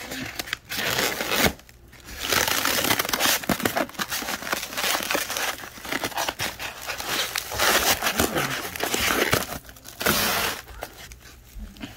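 Styrofoam packing blocks and plastic wrap being pulled and handled in an opened shipping box: a dense crinkling and scraping that comes in bursts, with brief pauses about two seconds in and again near the end.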